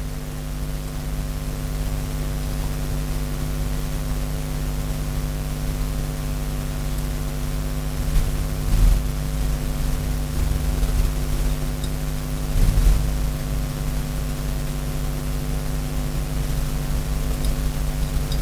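Steady hum with several fixed pitches over a low rumble, from a motor or mains-powered device. A couple of faint knocks sound about nine and thirteen seconds in.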